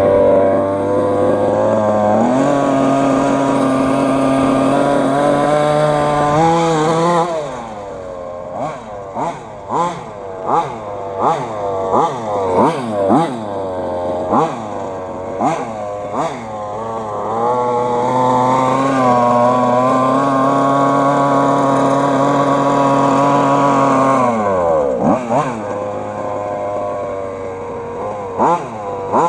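FG Modellsport 1/5-scale two-wheel-drive RC car's two-stroke petrol engine at high revs. It holds steady for several seconds, then is revved and let off in quick blips about once a second, holds high again, drops off near the end and blips a few more times.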